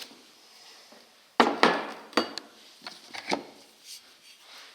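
Steel lathe chuck jaws clanking against each other and against a hard surface as they are handled and set down: six or seven sharp metal knocks starting about a second and a half in, the first ones loudest.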